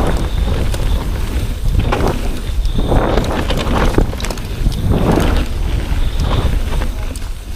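Mountain bike riding fast down a dirt forest trail, heard from a camera on the rider: wind buffeting the microphone as a heavy rumble, tyre noise swelling on the dirt about once a second, and sharp rattling clicks from the bike over bumps.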